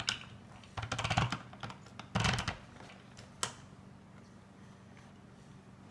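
Plastic crank and gears of a Play-Doh toy being turned by hand. It gives two short bursts of rapid clicking, about a second and about two seconds in, then one sharp click.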